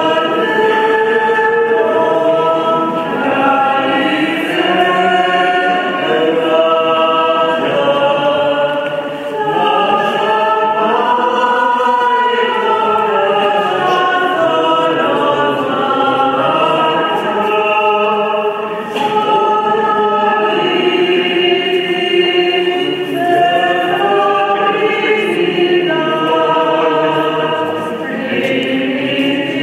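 A choir of nuns' voices singing a sacred hymn together in sustained, flowing lines.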